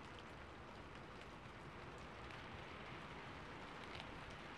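Rain on a rooftop: a faint, steady hiss with scattered light drop ticks.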